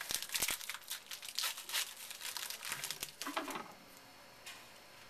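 A trading-card pack's wrapper being torn open and crinkled by hand, a busy crackling that stops about three and a half seconds in.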